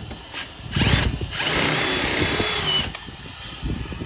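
Hilti SF 6H-A22 cordless hammer drill running in two goes. First a short spin-up with a rising whine about three-quarters of a second in, then a steady run of about a second and a half that stops about three seconds in.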